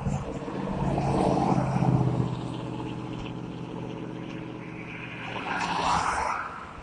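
Traffic passing on the street: a vehicle's engine hum swells and is loudest about one to two seconds in, then fades. Another rush of road noise rises and falls near the end.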